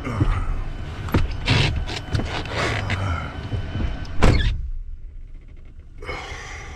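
Knocking and clattering, then a single heavy slam about four seconds in, after which the noise around goes muffled and much quieter: a lorry cab door being shut with the driver inside.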